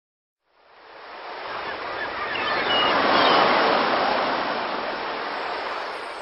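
Sea waves breaking on the shore: the surf noise swells up from silence, peaks about three seconds in, then slowly dies back down.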